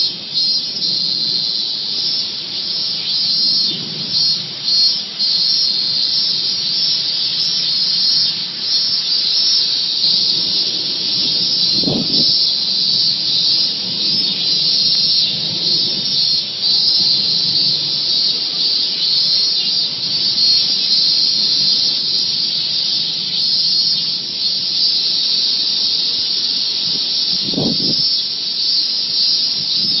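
A dense, steady chorus of insects buzzing high in pitch in summer forest, unbroken throughout, with two brief dull thuds, about 12 seconds in and near the end.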